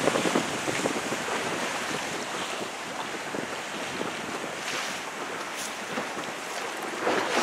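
Wind buffeting the microphone over the rush and splash of choppy seawater, with a louder surge near the end.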